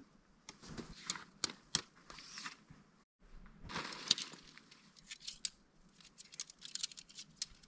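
A backpacking dome tent being taken down: nylon tent fabric rustling and crinkling while the tent poles are pulled free, with a string of sharp clicks and clacks.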